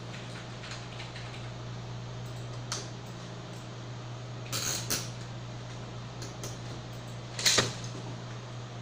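A few short knocks and clicks of parts being handled, the loudest about three-quarters of the way through, over a steady low hum.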